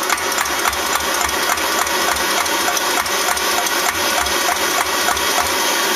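Brass paraffin pressure stove being pumped up by hand: a quick run of rhythmic clicks from the pump, about three or four a second, that stops near the end, over the steady roar of the lit roarer burner as the pressure builds.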